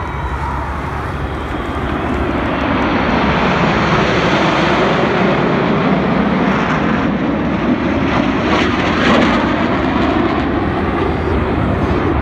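Formation of jet aircraft passing low overhead: a loud, rushing jet engine noise that builds over the first few seconds and then holds steady.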